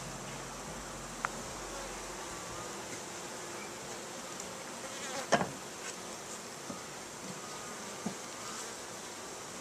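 A colony of Italian honey bees buzzing steadily inside an open top-bar hive, with a few light knocks, the loudest about halfway through.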